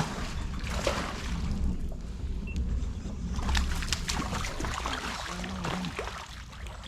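Water sloshing and trickling around a kayak, with scattered light knocks and clicks and a steady low rumble.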